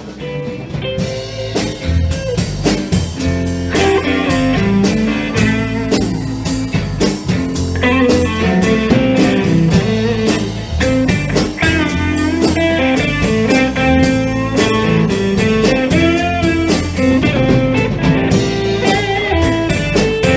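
Live rock band playing without vocals: electric guitar with bent notes over electric bass and a drum kit keeping a steady beat. It fades in at the very start.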